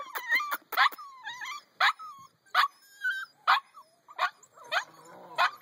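Eight-week-old husky puppies yipping and whimpering: short, sharp yips about once a second, with thin, wavering whines between them.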